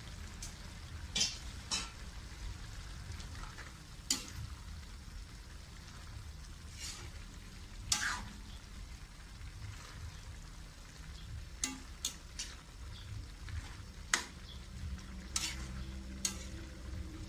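A metal ladle stirring chopped vegetables in a metal wok, scraping and knocking against the pan at irregular moments, over a steady low rumble and the soft sizzle of the vegetables cooking.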